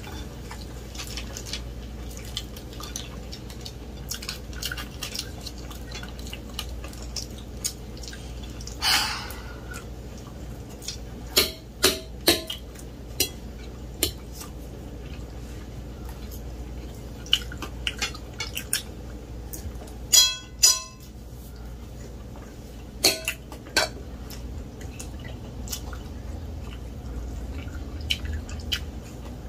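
Forks clinking and scraping on plates now and then during a meal, with two louder ringing clinks about twenty seconds in, over a low steady hum.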